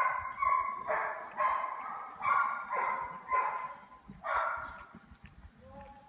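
A run of about eight short, pitched animal calls, about half a second apart, stopping about five seconds in.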